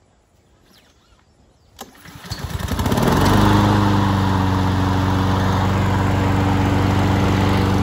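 Honda HRN216VKA lawn mower's GCV170 single-cylinder engine being pull-started from cold for its first run: it catches about two seconds in, picks up speed over a second, and settles into a steady run.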